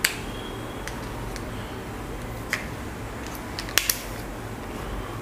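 AAA batteries being pressed into the plastic battery compartment of an Airtel Xstream TV remote: several sharp clicks and taps, three in quick succession about four seconds in, over a steady low hum.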